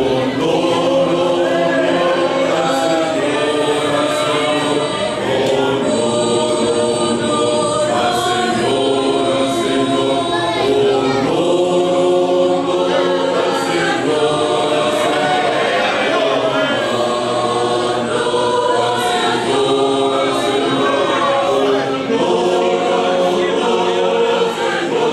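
Large mixed choir of men's and women's voices singing a hymn in sustained chords, in steady phrases that change every second or two.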